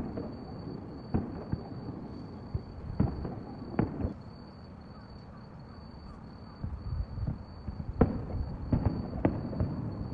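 Fireworks bursting overhead: a series of booms, each with a rumbling tail, coming in two clusters with a lull of a couple of seconds between them. A thin, steady high-pitched tone runs underneath.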